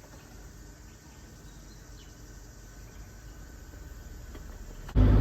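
Faint outdoor ambience with a steady insect chirring. About five seconds in it cuts suddenly to a loud, low vehicle hum.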